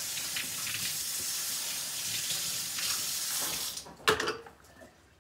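Kitchen tap running steadily into a stainless steel sink, shut off about three and a half seconds in, followed by a single short knock.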